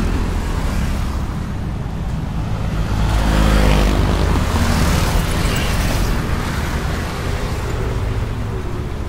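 Busy road traffic of cars and motorcycles: a steady rumble of engines and tyres, with a vehicle passing louder about three to five seconds in.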